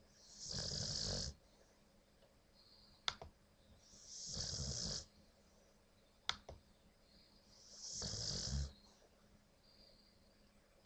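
Dog snoring in deep sleep: three long, noisy snores about every four seconds. Between them come two short, sharp clicks.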